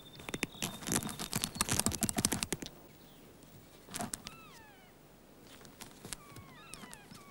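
A kea's beak pecking and tugging at a truck's brake cable and its metal fittings, giving a quick run of clicks and rattles for the first two and a half seconds. After that come thin whistled bird calls that slide downward, in two groups.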